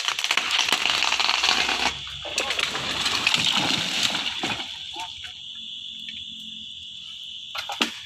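A felled sengon tree coming down: a loud rushing crash of leaves and branches for about two seconds, then a rougher rustle and crackle that settles about four seconds in. A thin, steady high whine runs under it.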